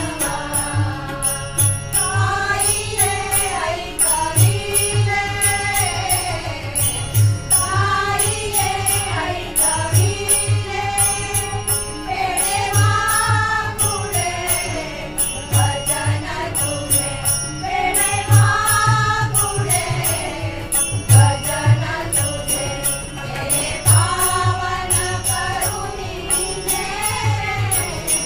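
A group singing a Ganpati bhajan in Marathi devotional style, led by a woman's voice. The singing is backed by a harmonium's held chords, tabla strokes keeping a steady beat, and the jingle of small hand cymbals.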